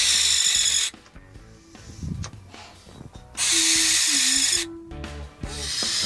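Barn owl giving two long, harsh hissing screeches, each about a second and a half, the first at the start and the second about three and a half seconds in, with a fainter one beginning near the end. Background music plays underneath.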